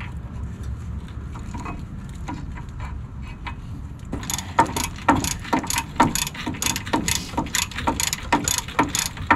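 Hand ratchet clicking as it snugs down a Loctite-coated brake caliper bracket bolt on a truck's front hub. It starts about four seconds in and goes on steadily at roughly three clicks a second.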